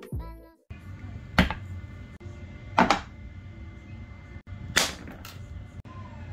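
The end of an intro music track cuts off. Then come four sharp knocks of kitchenware being handled and set down: a red nonstick frying pan and a bamboo cutting board on a counter.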